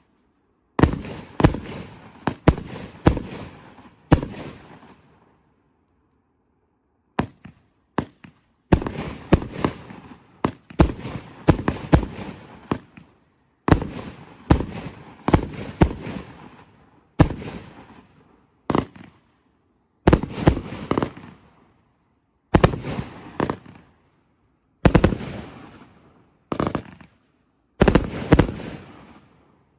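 A 51-shot 30 mm salute firework cake firing loud report bangs in rapid, irregular clusters, each bang followed by a fading echo. There is a pause of a few seconds early on before the volleys resume.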